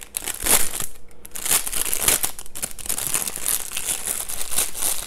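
Clear plastic bag crinkling and rustling in irregular crackles as it is worked open and a plastic fermentation airlock is pulled out of it.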